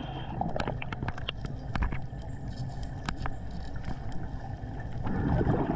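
Underwater sound on a diver's camera: a steady low rumble and hiss with scattered sharp clicks, then a louder low bubbling burst near the end as the diver breathes out.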